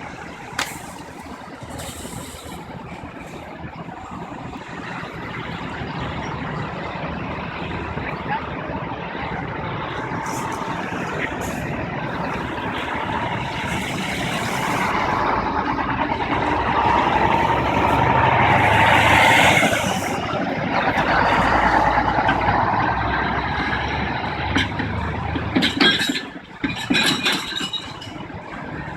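A heavy vehicle such as a truck running and passing, its sound building to a peak about two-thirds of the way through and then easing off, with a few knocks near the end.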